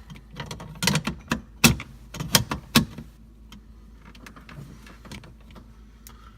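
Plastic clicks and knocks of an LG LT120F refrigerator air filter being worked into its housing, a quick cluster of sharp clicks in the first three seconds, then a few fainter taps.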